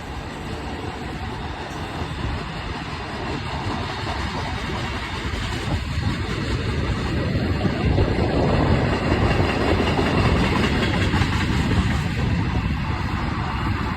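Union Pacific freight train rolling past, with diesel locomotive engines working under load; the rumble builds from about six seconds in and is loudest around eight to twelve seconds.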